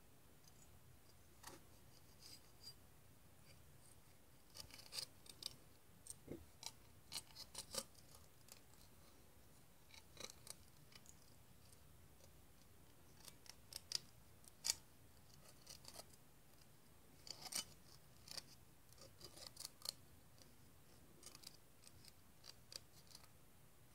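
Small, sharp metallic clicks and snips in scattered clusters: thin etched-steel model parts being cut from their sheet with tiny scissors and handled.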